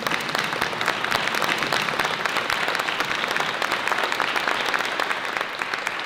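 Audience applauding: many hands clapping steadily.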